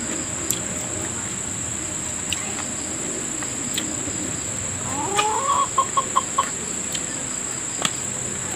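A chicken calls about five seconds in: a rising squawk, then a quick run of about five clucks. A steady high-pitched insect drone runs underneath.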